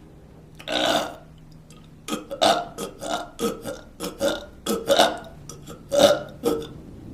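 A person burping: one longer burp about a second in, then a quick string of short burps over the next few seconds.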